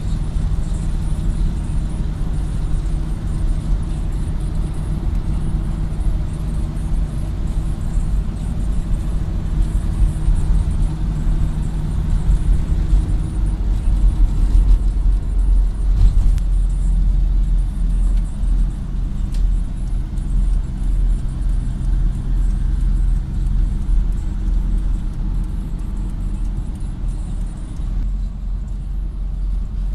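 Engine and road noise heard from inside a vehicle's cabin while driving at speed: a steady low rumble with a low engine hum whose tone shifts about halfway through.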